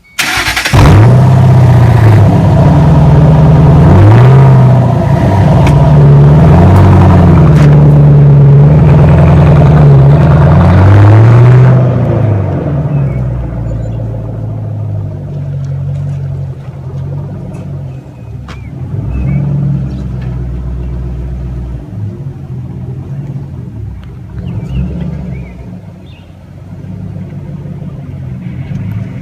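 2006 Ford Mustang GT's 4.6-litre V8 through newly fitted Flowmaster Outlaw axle-back mufflers: it starts up about half a second in and is revved three times. At about twelve seconds it settles into a quieter, steady idle.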